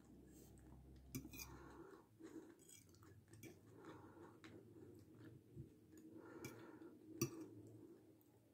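Faint chewing and breathing while eating, with a metal fork clicking against the plate twice, the louder click near the end.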